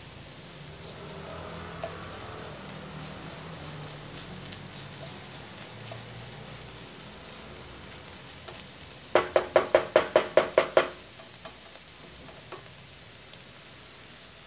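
Diced Spam, carrots and spring onions sizzling gently in a nonstick wok as a spatula stirs them. About nine seconds in, a quick run of about nine sharp, ringing knocks, close together.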